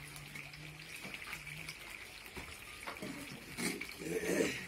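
Metal scrapers working thick, cooling sugarcane jaggery paste in a wide shallow pan: wet scraping and squelching of the sticky syrup, louder about four seconds in.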